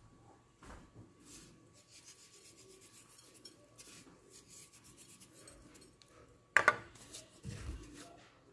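Faint rubbing and rustling of hands sprinkling salt over a round of fresh white cheese on a wooden board, with a sharp knock about two-thirds of the way through and a duller thump a second later.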